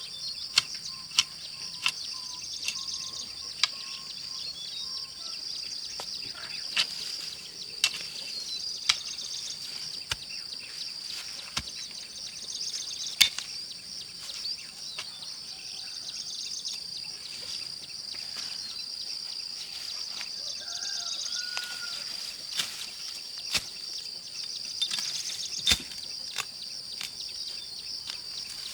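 A steady high insect drone, pulsing in places, with irregular sharp knocks scattered throughout and a few short whistled bird calls.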